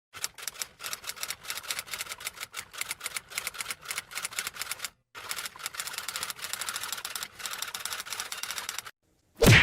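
Rapid typing, key clicks in two quick runs separated by a short pause, then one sharp loud knock near the end.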